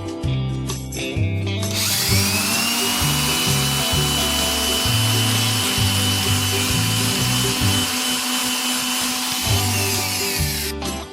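A handheld electric power tool spins up about two seconds in, runs steadily with a high whine and rushing noise for about eight seconds, then winds down near the end, over background music.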